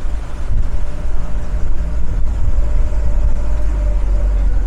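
A motor vehicle running close by on the street: a loud, deep engine rumble with a faint steady whine above it.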